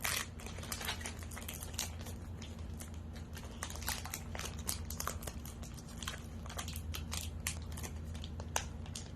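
A baseball-card pack wrapper crinkling as it is torn open and handled: many small, irregular crinkles, with a few sharper ones near the start and about four seconds in.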